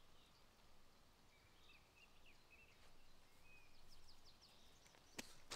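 Near silence: quiet woodland ambience with faint, scattered bird chirps, and one sharp click near the end.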